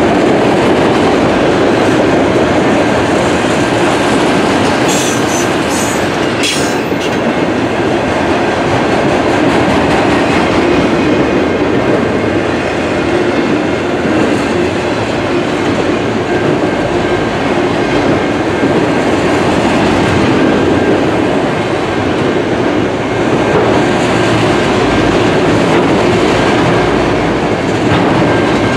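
Empty autorack freight cars rolling past close by: a steady rumble and rattle of steel wheels on the rail, with a couple of brief sharp high noises about five and six and a half seconds in.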